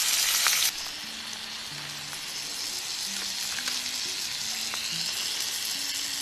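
Ground beef and cauliflower mushroom sizzling in a cast iron skillet over campfire coals. The sizzle is louder for the first split second, then drops abruptly to a steady, quieter sizzle with a few faint ticks.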